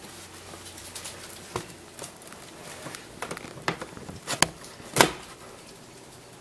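Hamster eating seeds: irregular small crunches and clicks as it cracks husks, the loudest a quick pair about four and a half seconds in and another at about five seconds.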